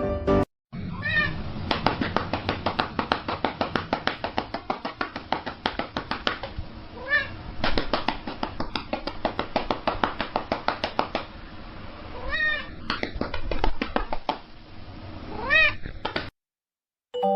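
A cat meowing several times, short calls that rise and fall in pitch, over a quick run of soft clicks, several a second.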